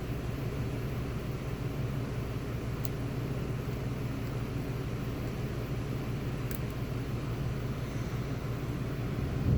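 Steady low hum of background noise, with two faint metallic ticks about three and six and a half seconds in from lock picks working inside a pin-and-slider lock.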